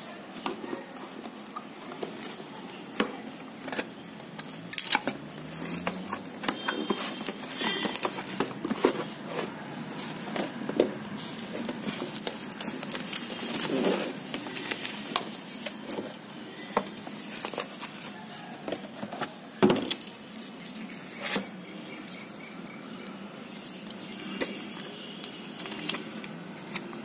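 Cardboard box, bubble wrap and paper handled by hand during unboxing: scattered clicks, knocks and crinkles, with one louder knock about two-thirds of the way through.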